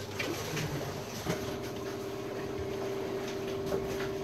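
A steady, even-pitched mechanical hum starts about a second in, with a few light knocks from a plastic bucket and funnel being handled.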